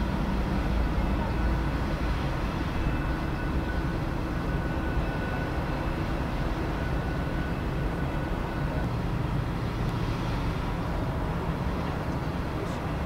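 Jet engines of a Boeing 747-400 running at low taxi power, a steady rumble with a faint high whine. The whine fades about nine seconds in.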